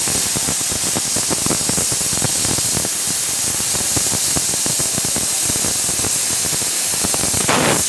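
CNC laser cutter cutting sheet metal: a loud, steady hiss from the gas jet at the cutting head with a dense crackle running through it. Near the end it swells briefly and then cuts off as the cut stops.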